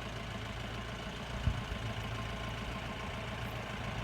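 Mahindra utility vehicle's diesel engine running steadily as it drives up a sand dune, with one brief knock about a second and a half in.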